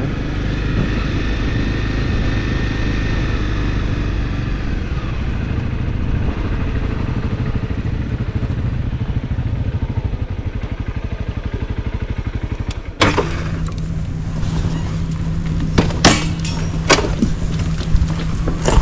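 Motorcycle engine running as the bike rolls slowly, with an even pulsing beat in its note. About two-thirds of the way in the sound changes abruptly to a steady idle, and a few sharp clunks and clicks follow.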